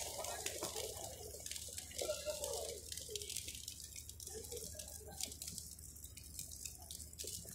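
Thermite charge burning in a rail-welding crucible: a faint, steady hiss with scattered crackles and ticks, louder at first and easing off.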